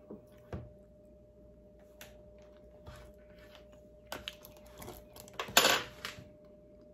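Spoon clicking and scraping against a pudding container. A few scattered clicks are followed by a busier cluster about four seconds in, with the loudest scrape at about five and a half seconds.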